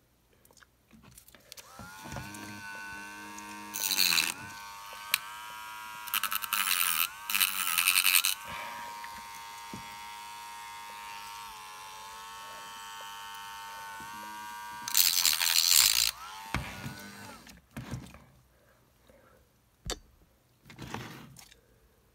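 Small handheld electric rotary tool running with a steady high whine that rises in pitch as it spins up, cut by several loud bursts of grinding as the bit bites into the Lightning connector's housing; it winds down about sixteen seconds in, followed by a few light knocks.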